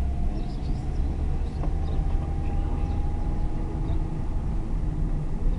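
Car engine and road noise heard from inside the cabin while driving: a steady low rumble with a faint whine that rises slightly in pitch.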